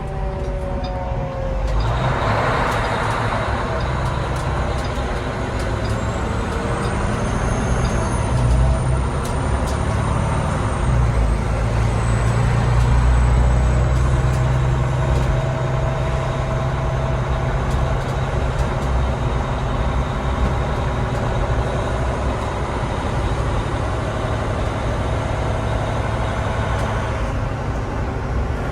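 Fire truck's engine running as the truck moves, with a siren winding down in the first second and a short hiss of air about two seconds in. The engine grows louder between about eight and fifteen seconds in, then settles.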